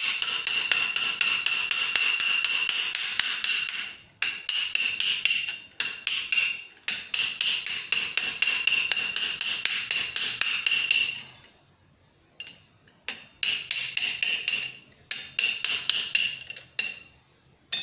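Small hammer tapping lightly and quickly, about five taps a second, on a .50 BMG brass cartridge case held in a steel stand with a steel ball bearing in its mouth. Each tap gives a high metallic ring. The tapping drives down wrinkles that form in the brass as the ball expands it. The runs of taps are broken by short pauses, with a longer lull of a couple of seconds past the middle.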